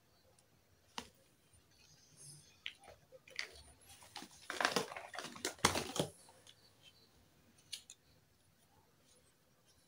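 Small plastic toy pieces clicking and clattering as they are handled and set down on a hard tabletop. A single click comes about a second in, a busier run of clicks and rustling in the middle, and one or two light taps near the end.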